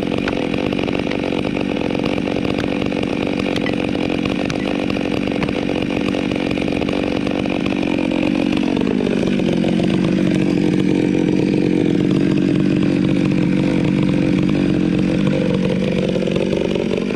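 Chainsaw running at high speed, its pitch dropping about halfway through as the chain bites into the wood under load, then rising again near the end as the cut eases.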